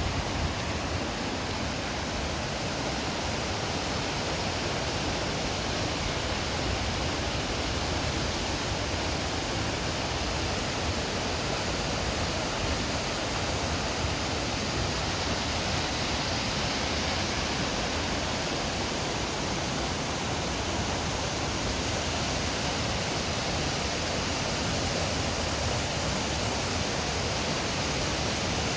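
Pistyll Rhaeadr waterfall, a steady rushing roar of falling water that does not change.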